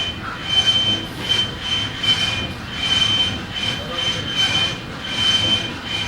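A metalworking shop machine runs with a repeated high-pitched metallic squeal in an uneven rhythm, over a low rumble.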